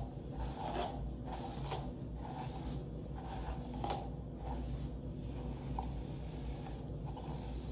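A hairbrush swishing through long hair in short strokes, roughly one a second, with rustling as the hair is handled, over a low steady hum.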